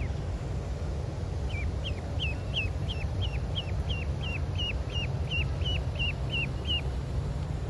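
Yellow domestic duckling peeping: a run of about sixteen high, falling peeps, roughly three a second, starting about a second and a half in and stopping shortly before the end, over a steady low rumble.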